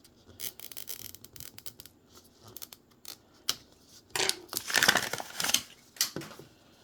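Mini Brands toy packaging being handled and opened: light plastic clicks and taps, then loud crinkling and tearing of a plastic wrapper from about four to five and a half seconds in.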